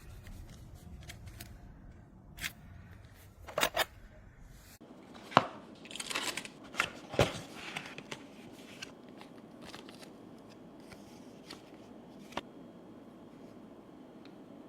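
Close-up handling noise: a string of sharp clicks and taps with some scraping and rustling, busiest from about five to eight seconds in. The low background hum drops away abruptly about five seconds in.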